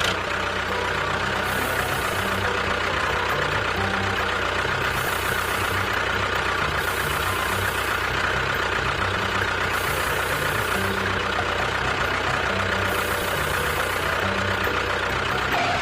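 A motor running steadily with an engine-like rattly hum and a hiss that swells and fades every few seconds.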